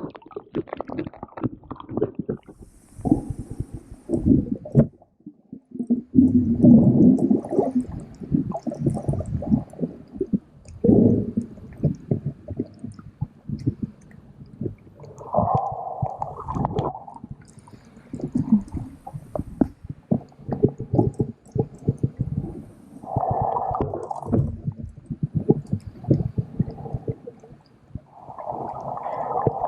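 Muffled, irregular water sloshing and gurgling heard from underwater, with many small clicks and knocks and swelling surges of sound, as when snorkeling.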